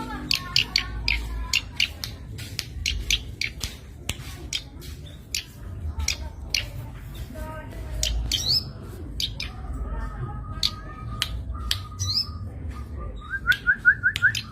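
Zitting cisticola (cici padi) calling: a rapid scatter of short, sharp notes. After the middle come a few buzzy trills, and near the end a quick run of rising notes.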